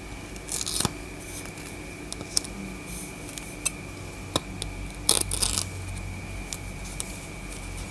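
Scattered sharp clicks and two short rustles of small objects being handled, over a steady hum with a thin high whine.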